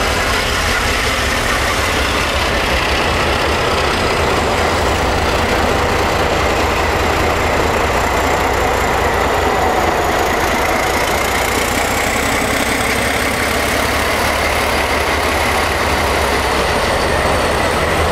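Several diesel-electric locomotives rolling slowly past at close range: a steady, loud diesel engine rumble with a thin high whine running through it.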